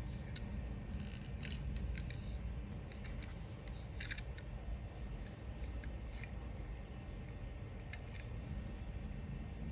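Handling of a diecast toy car's cardboard and plastic packaging: a few irregular sharp clicks and rustles over a low steady hum.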